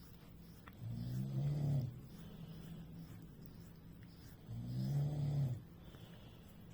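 Someone snoring: two long snoring breaths, each about a second, about three and a half seconds apart, over a faint steady hum.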